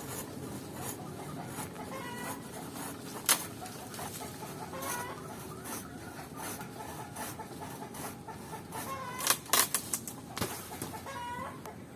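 Chickens clucking, short calls every second or two, with several sharp clicks or knocks, the loudest about three seconds in and a quick run of them near the ninth and tenth seconds.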